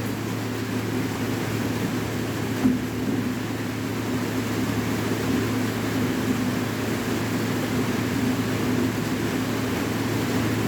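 Steady rain hiss over a constant low hum.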